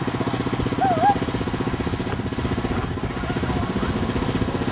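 Small engine of a lure-coursing lure machine running steadily with an even, rapid putter, with a short high wavering whine about a second in.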